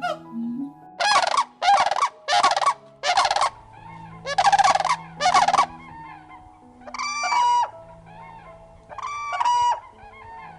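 Turkey gobbling: several quick warbling gobbles in a row, then a few separate honking bird calls near the end.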